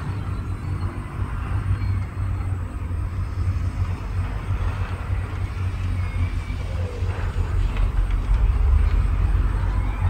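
Diesel engine of heavy earthmoving machinery running with a steady low rumble, growing louder about eight seconds in.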